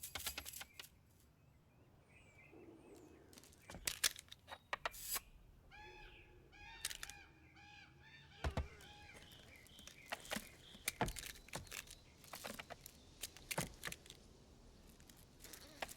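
Animated-film sound effects with no dialogue or music: a scattered string of sharp clicks, knocks and thumps, with a warbling pitched sound about six to eight seconds in.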